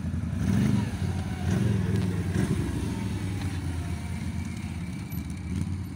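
Quad bike (ATV) engine revving under load as it climbs a sandy slope, with louder bursts of throttle in the first couple of seconds, then running steadier and a little quieter.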